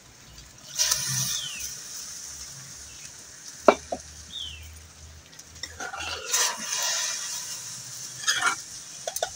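Water poured into a hot clay kadhai of red lentils frying in spiced oil over a wood fire, hissing and sizzling. A couple of sharp clinks come about halfway through.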